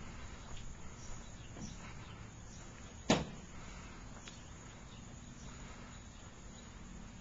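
Faint outdoor background with insects chirping steadily, a few soft ticks, and one sharp knock about three seconds in.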